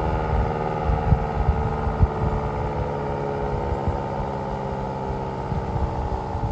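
Federal Signal Model 7T outdoor warning siren sounding a sustained alert tone, a loud wail of several stacked tones that sags slightly in pitch, with scattered low thumps underneath.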